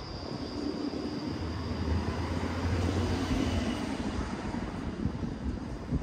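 A motor vehicle passing by: a low engine rumble that swells to its loudest about two to three seconds in, then fades away.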